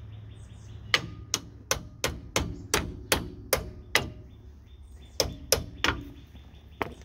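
Hammer tapping a greased brake caliper pin through the caliper until it seats against its stops. About nine sharp strikes come at roughly three a second, then after a short pause a few more near the end.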